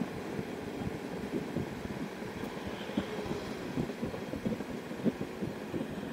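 Harley-Davidson Heritage Softail Classic's air-cooled V-twin engine running at road speed, a low uneven rumble mixed with wind, heard through a helmet-mounted camera microphone.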